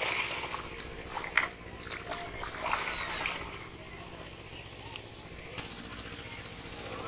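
Shallow pond water splashing and sloshing as fish thrash at the surface and a cast net is hauled in by hand, with a few sharp splashes, the loudest about a second and a half in.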